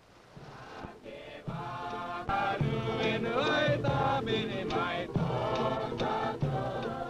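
Title music: a group of voices singing together in a chant-like song, fading in over the first two seconds and then carrying on strongly.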